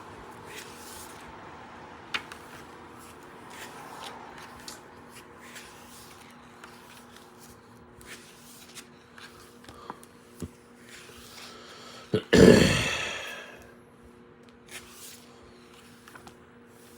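Pages of a hardcover cookbook being handled and turned: soft rustles and small clicks, then one loud brushing sweep about twelve seconds in that fades over about a second, over a faint steady hum.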